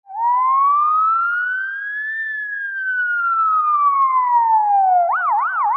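Police car siren: one long wail that rises for about two seconds and falls slowly, then switches to a fast yelp of about four cycles a second near the end.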